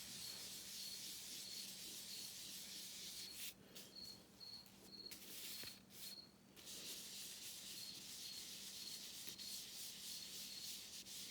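Blending brush rubbing ink onto the edges of a cardstock panel: a faint, steady brushing hiss, pausing briefly about three and a half seconds in and again around six seconds.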